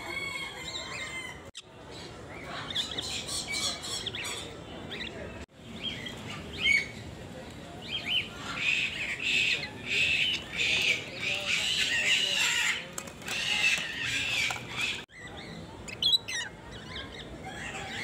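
Caged parrots squawking and chattering, many shrill calls overlapping, loudest and busiest in the middle stretch. The sound drops out for a moment three times, about a second and a half in, at about five and a half seconds and near the end.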